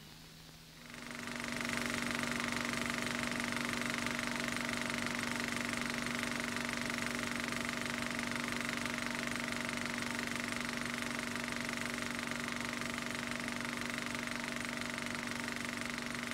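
A machine running steadily with a constant hum, starting about a second in after a brief lull.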